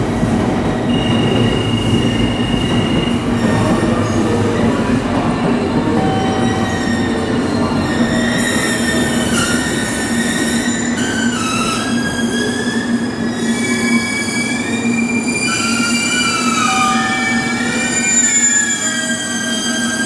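JR Kyushu 813 series electric train pulling slowly away, with a steady low rumble. From about eight seconds in, several high squealing, whining tones waver and glide in pitch over it.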